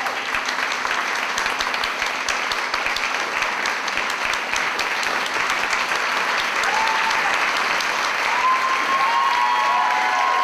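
Audience applauding, dense and steady after swelling in at the start, with a few cheering voices rising above the clapping in the second half.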